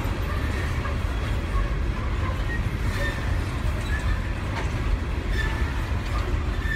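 Freight train's empty coal cars rolling past: a steady low rumble of wheels on rail, with a faint high wheel squeal now and then.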